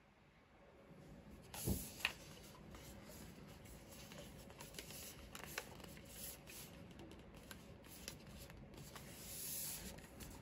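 Hands handling and turning a cylindrical metal whisky gift tin on a wooden table: a thud about a second and a half in, then a sharp click, followed by the rubbing and light taps of fingers sliding over the tin, with a longer slide near the end.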